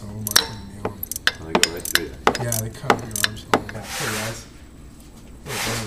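Sharp metallic clicks and taps of hand tools working on hose clamps and fittings of the power-steering return line, followed by two short hisses.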